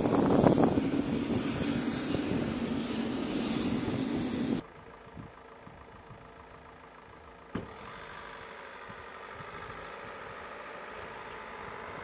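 Steady running-engine noise with a low hum on an aircraft flight line, cut off abruptly about four and a half seconds in. What follows is a much quieter steady noise, which steps up suddenly a few seconds later to a moderate steady hum.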